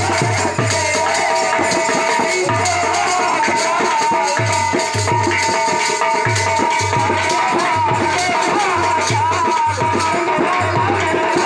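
Live faag folk music: hand drums beating a steady rhythm of about two strokes a second under dense metallic jingling, with voices singing into microphones.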